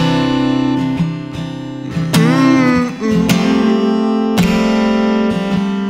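Acoustic guitar strummed through an instrumental gap in a live song, with sharp strokes about once a second and sustained chords ringing between them.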